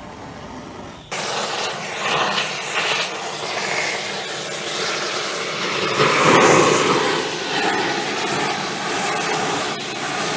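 A torch burning with a steady hiss, starting abruptly about a second in, as it heats a seized steel ring to break it free of an aluminium hub.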